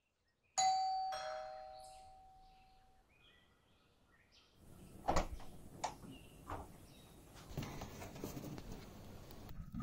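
Two-tone doorbell chime: a ding followed about half a second later by a lower dong, both ringing out and fading over a couple of seconds. Later come a few sharp knocks and rustling.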